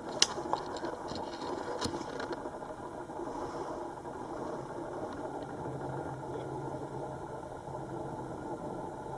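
A few sharp clicks in the first two seconds, the loudest about a quarter of a second in, from small parts and tools being handled at a soldering job, over a steady low background rumble.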